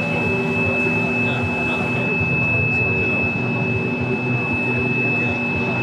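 A steady high-pitched tone sounds throughout over a dense background murmur.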